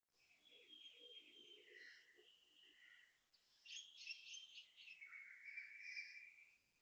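Faint birdsong: several birds chirping and warbling, with a denser burst of calls about halfway through.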